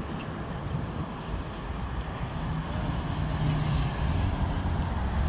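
Engine running with a low rumble that swells between about three and four and a half seconds in, ending with one sharp click.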